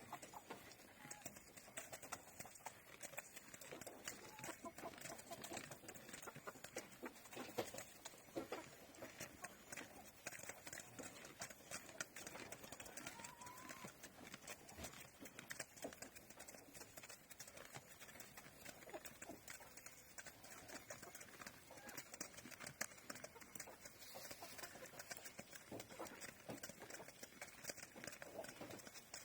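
Chickens pecking grain from a wooden basin: a steady patter of quick, irregular taps and clicks, with a soft short call about halfway through.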